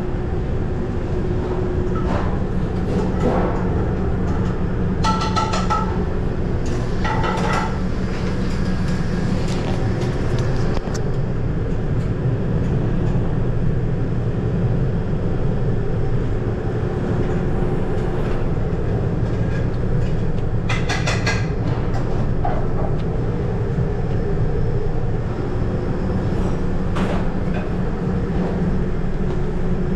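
Commercial kitchen at work: a loud, steady mechanical hum of ventilation and equipment, broken by a few ringing metal clanks of pans and utensils, the clearest around 5, 7 and 21 seconds in.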